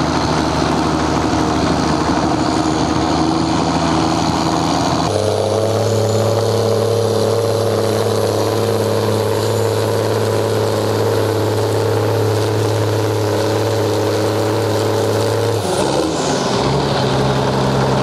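Ford 9600 tractor's turbocharged six-cylinder diesel working hard under load as it drags a weight-transfer pulling sled, a steady engine note throughout. About five seconds in the sound jumps abruptly to a closer, stronger engine note, and near the end the note drops as the tractor comes off the pull.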